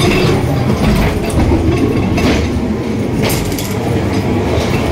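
Ghost train ride car rumbling along its track, with a sharp knock about every second.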